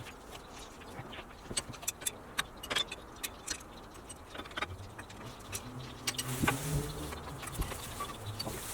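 Small metallic clinks and rattles of parking brake shoe hardware (shoes, springs and retainers) being handled and fitted by hand. A low hum comes in during the second half.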